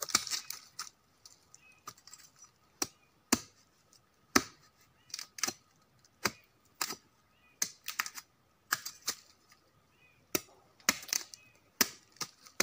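Machete blade chopping into a rotten tree trunk: short, sharp chops at an uneven pace, about two a second.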